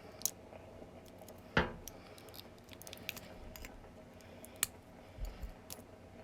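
Small clicks and scrapes of hand tools prying at the tiny plastic housing and parts of a disassembled wireless earbud, with one sharper click about one and a half seconds in.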